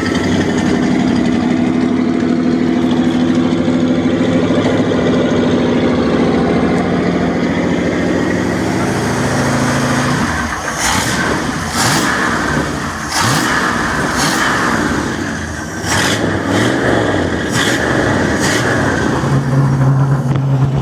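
A yacht's V8 engine running, with a steady even beat for about ten seconds. In the second half the note changes unevenly, with several sharp clicks, and a strong steady low hum near the end.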